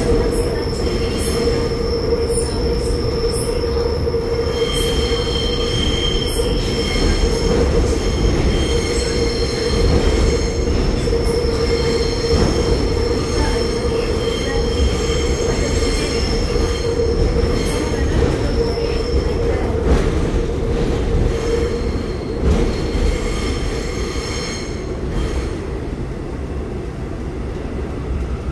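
Seoul Subway Line 1 electric train taking a tight 250 m radius curve, heard from inside the car: the steel wheels squeal against the rails in several shrill tones over a loud running rumble. The squeal comes in a few seconds in and fades in the last few seconds.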